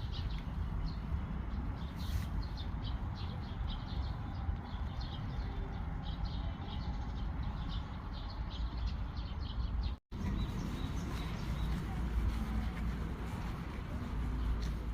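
Small birds chirping repeatedly in short high notes over a steady low rumble. The audio cuts out for an instant about two-thirds of the way through, and the chirping is sparser after it.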